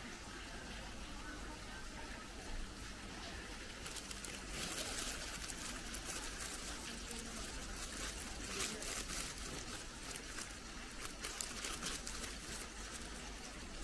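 Steady trickling, running water, with stretches of louder hiss in the middle.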